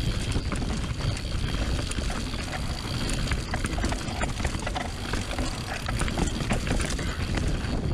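Mountain bike riding fast down a dirt trail: a steady rumble from tyres and suspension over the ground, with constant irregular rattles and clicks from the bike's chain and frame.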